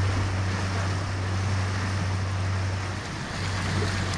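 A boat's motor running steadily at raised RPM, a low even hum, with the rush of churning wake water and wind across the microphone.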